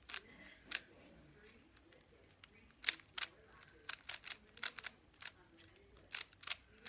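3x3 plastic speed cube being turned quickly by hand during a solve: the layers click and clack irregularly, in quick clusters with short pauses.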